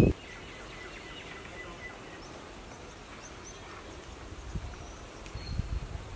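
Birds chirping in short, scattered calls over a quiet rural ambience, with a few low rumbles in the second half.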